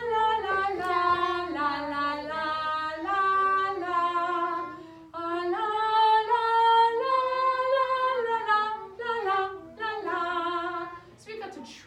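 A single female voice singing a melody on "la" syllables without accompaniment, holding each note and stepping between them, with a short break about five seconds in.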